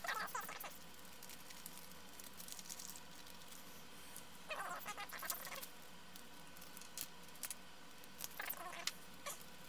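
Plastic anti-static parts bags rustling in three short bursts as small components are handled, with a few light clicks of tweezers and parts on the bench.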